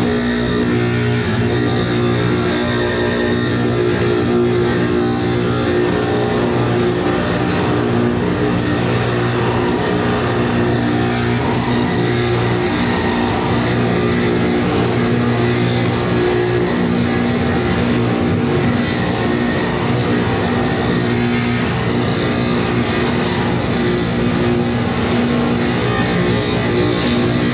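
Live noise music: a dense, unbroken wall of distorted noise over steady low droning tones, held at a constant level with no breaks.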